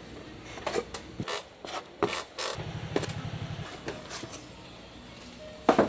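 Scattered knocks and clatter of a wooden dough tray and work surface being handled, with a loud knock near the end. A short low buzzing hum comes in about two and a half seconds in, lasting about a second.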